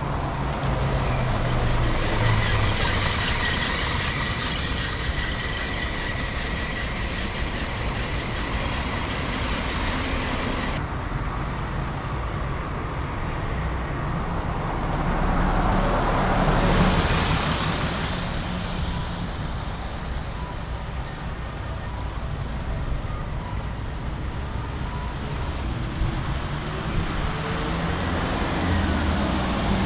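Diesel city buses driving past one after another on a wet road: engines running and tyres hissing on the wet asphalt, with the loudest pass-by a little past halfway.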